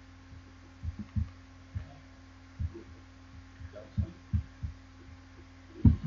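Steady low electrical hum from the recording setup, broken by about eight dull low thumps at irregular intervals, the loudest just before the end.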